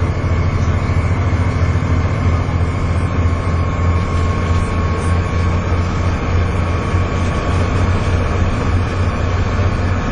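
Volvo B7TL double-decker bus's six-cylinder diesel engine pulling hard at a steady pace, a deep drone under a steady high whine: the 'hoover' noise these buses are known for.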